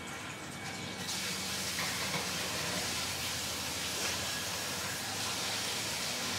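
A steady hiss with a faint low hum beneath it. It starts abruptly about a second in and then holds even.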